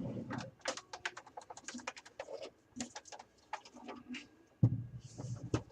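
Irregular light clicks and taps of small plastic and metal computer parts being handled, several a second, with one louder dull thump a little past halfway.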